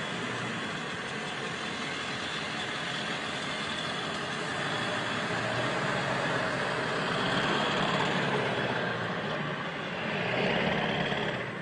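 A vehicle engine running, growing louder about halfway through and dropping off sharply near the end.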